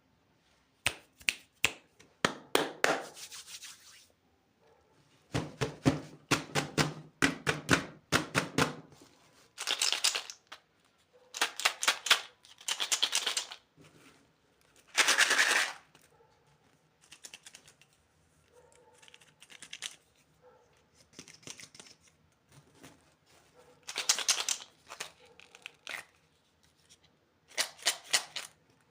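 Candy packaging being opened by hand: plastic wrappers crinkling and tearing in bursts, with runs of rapid sharp clicks and short pauses between them.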